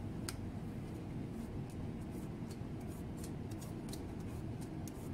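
Tarot cards being drawn from a deck and dealt onto a glass tabletop: a string of irregular light clicks and slaps as each card is picked up and laid down, over a low steady hum.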